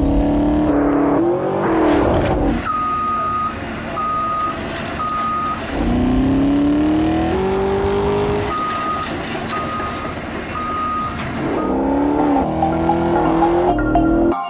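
Car engine revving, its pitch rising and falling several times. A high beep repeats three times, twice over.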